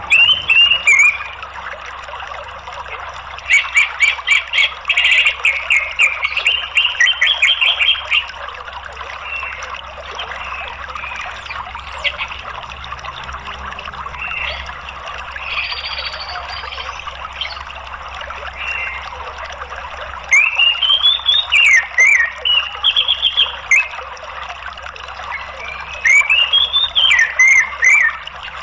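Orange-headed thrush song in four loud bursts of quick chattering trills and rising-and-falling whistled notes, over a steady rush of flowing water.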